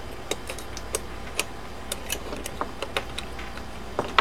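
Small metal parts of a mortise lock clicking and tapping irregularly as they are fitted back into the lock case, with the sharpest click near the end.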